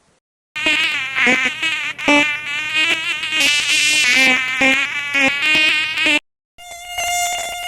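Mosquito wings buzzing in a high whine that wavers up and down in pitch. The buzz cuts off about six seconds in, and after a short gap a steadier buzz at a constant pitch starts.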